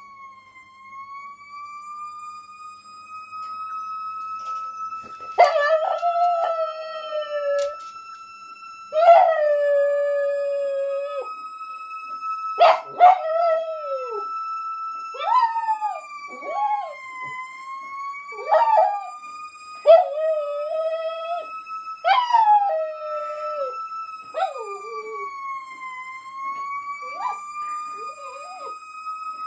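A small pet dog howling along to a siren playing on the television: about a dozen drawn-out howls, many sliding down in pitch, starting about five seconds in. Under them the siren's single tone wails slowly up and down.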